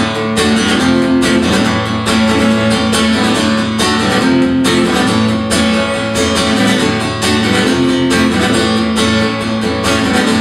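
Acoustic guitar strummed in a steady rhythm, an instrumental passage between sung verses of a live song, with the chords changing every couple of seconds.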